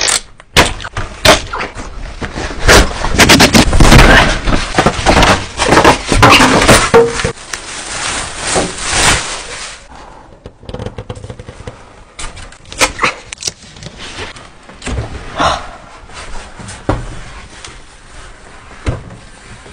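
Unwrapping a refrigerator: a box cutter slitting and tearing its plastic packaging, with dense scraping, crackling and knocks. About halfway through this gives way to sparser knocks and bumps of handling.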